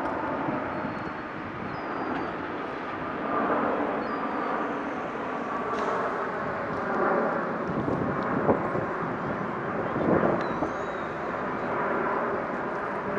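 Jet airliner engines on landing approach, heard as a steady rumbling whoosh from overhead mixed with the rise and fall of road traffic.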